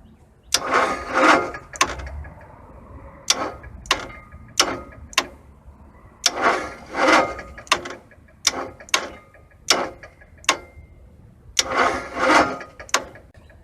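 Onan RV generator's starter motor cranking in three short grinding attempts, each about a second and a half, with sharp clicks in between. The genset only tries to spin; the starter's drive gear teeth are chewed up.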